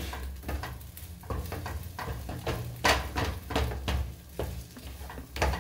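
A utensil scraping and tapping irregularly in a frying pan over sizzling, as eggs are scrambled on the stove.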